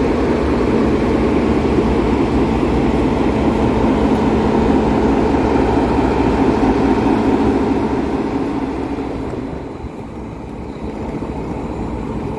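Electroputere 060-DA diesel-electric locomotive's diesel engine idling at a standstill, a steady low rumble. It grows fainter about eight to ten seconds in, then holds steady.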